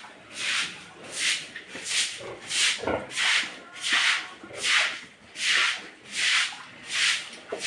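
Long-handled scrub brush scrubbing a sow's hide during her bath, in steady back-and-forth strokes about three every two seconds.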